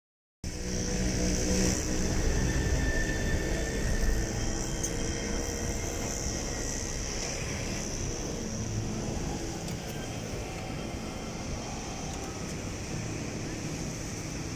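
A motor vehicle engine running past, loudest in the first few seconds and fading, over a steady outdoor rush.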